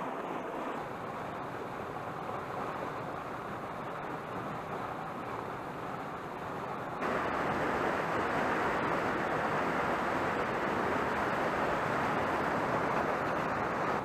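Mountain stream running over rocks and a small cascade: a steady rush of water. About halfway through it jumps abruptly louder and brighter and holds there.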